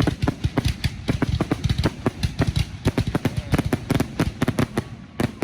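Consumer fireworks going off as a rapid, irregular string of sharp cracks and bangs, several a second.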